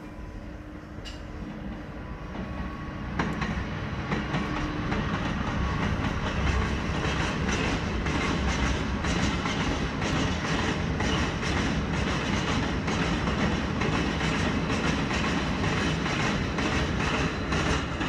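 Freight train passing, hauled by two SNCF BB 427100 (BB 27000-family) electric locomotives in multiple: the sound grows over the first few seconds as the locomotives come by, then settles into a steady rolling noise with rhythmic wheel clatter over rail joints as the long rake of covered steel wagons goes past.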